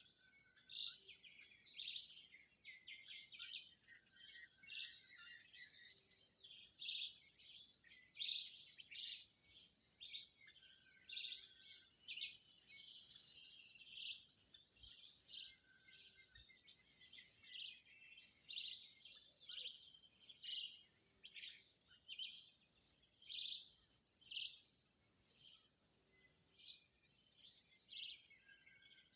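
Faint field ambience: a steady high insect trill, like crickets, with birds chirping in short repeated notes about once a second and a lower short whistle every few seconds.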